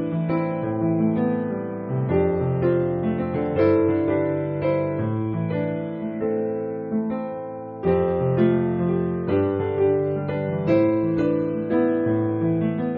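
Background piano music: slow, sustained chords changing about once a second, with a fresh chord struck about eight seconds in.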